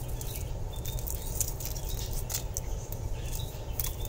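Flaky salt pinched and sprinkled by hand onto pretzel dough on parchment paper: light, scattered ticks and patter of salt grains landing, over a steady low hum.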